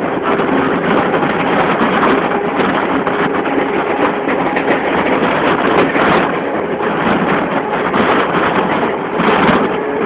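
Old DC-powered Mumbai suburban electric local train running at speed, heard from inside the coach. A loud, steady rush of wheel and wind noise carries a faint steady hum.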